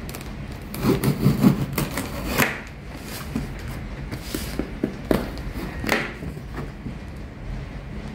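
A box-cutter blade slitting packing tape on a cardboard box: a run of scraping and tearing about a second in, then scattered clicks and taps as the box is turned and handled.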